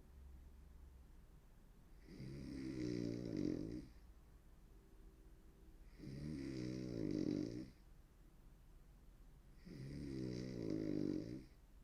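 A woman snoring hard: three long, rattling snores, each lasting about a second and a half to two seconds, coming about every four seconds, over a faint steady low hum.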